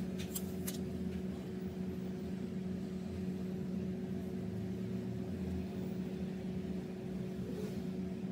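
Steady machine hum with a constant low tone, and a few faint clicks near the start.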